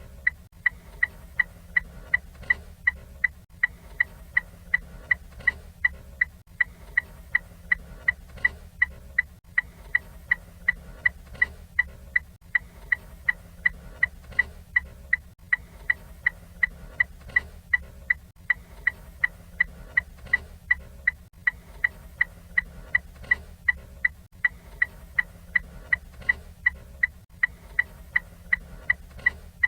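Ford Fiesta turn signal ticking: a steady, even run of short, sharp ticks at a quick regular rate, each with a brief high ring.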